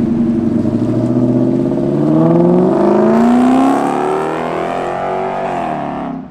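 Lexus LS400's V8 with a newly finished exhaust, accelerating hard away from a burnout. The engine note climbs steadily in pitch for several seconds, then dips and grows fainter near the end.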